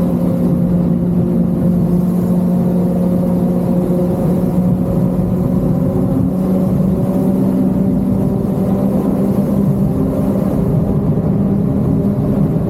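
Motorcycle engine with an aftermarket Akrapovic exhaust, running loud at steady revs with an even, unchanging pitch.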